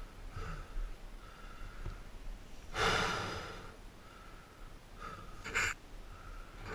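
A dirt-bike rider breathing heavily, short breaths in and out, with a loud, long breath out about three seconds in and a sharp one a little before the end.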